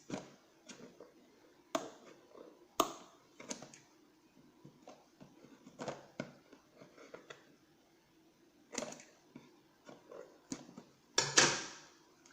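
A cardboard phone box and its packaging being opened and handled: scattered light clicks, taps and rustles, with the loudest rustle about eleven seconds in.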